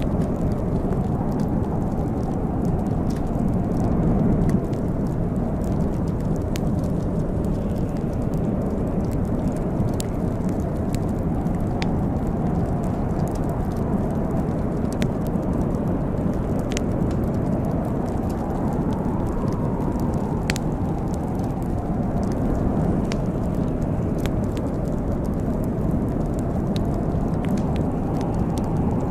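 Wood fire burning in a fireplace: a steady low rumble with scattered sharp crackles and pops every second or two.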